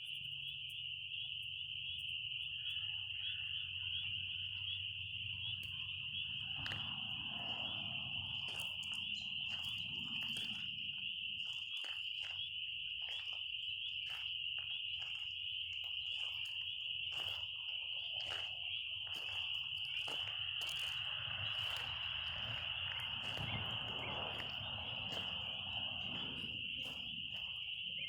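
A continuous high-pitched insect chorus, one steady buzzing trill that never lets up, with scattered faint clicks and softer rustling sounds beneath it.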